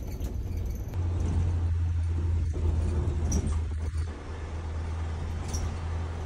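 Cabin noise of a moving minibus: engine and road noise as a steady low drone, with a few faint rattles.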